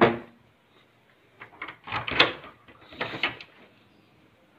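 A knock on a panelled front door, then a run of clicks and rattles from the lock, latch and handle as the door is unlocked and pulled open from inside.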